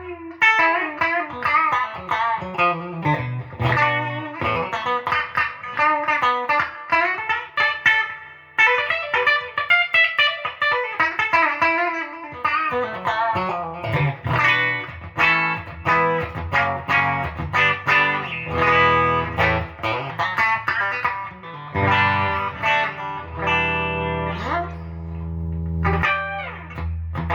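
Gibson Les Paul 50s Standard electric guitar played on its bridge P90 pickup: a continuous run of picked single notes and chords, with a few sliding notes near the end.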